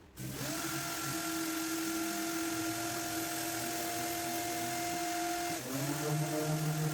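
Carts & Millie Prepmate 2 brushless random orbital sander switching on together with the shop vacuum hooked to it, coming up to speed and running with a steady whine. About five and a half seconds in, the sound dips briefly and settles into a different steady tone with a lower hum.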